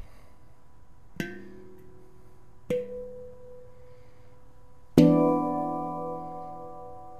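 Celestial Sound handpan in E Ostara tuning, struck three times about a second and a half apart. Each strike leaves several ringing tones. The third strike is the loudest and its ring fades slowly.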